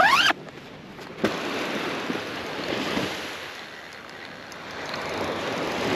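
The zipper of a soft fish cooler bag pulled shut in one quick zip that rises in pitch, with a single click a little over a second later. After it, surf washes onto the beach, swelling and fading.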